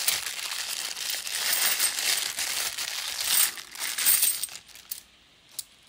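Clear plastic coin bag crinkling as it is handled and opened, with the 50p coins inside clinking. The crinkling stops just under five seconds in, followed by a single click.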